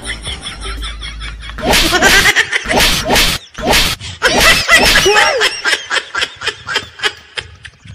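Loud laughter in quick repeated bursts, beginning about two seconds in.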